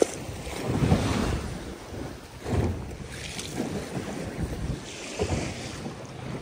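Wind buffeting the microphone over the wash of waves around a small open boat at sea. It swells in irregular surges a few times.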